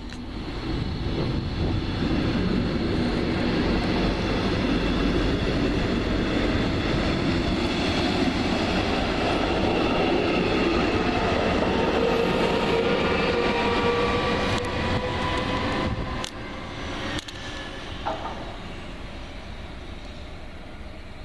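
A train running on the tracks: a loud, steady rolling noise with a faint whine that rises slowly in pitch. The sound dies down after about sixteen seconds.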